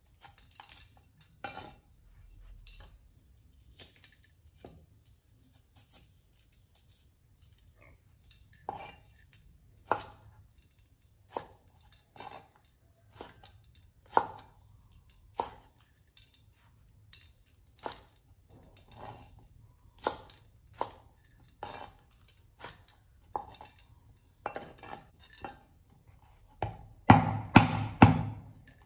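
Cleaver cutting green bell pepper on a wooden chopping board: single knocks of the blade on the board, about one a second. Near the end come four loud, heavy chops in quick succession.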